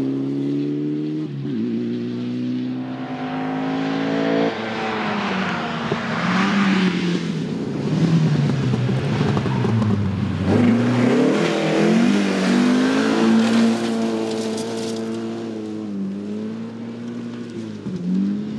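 Rally car engine running at high revs, its pitch rising and falling repeatedly with throttle and gear changes. A rushing noise swells around the middle.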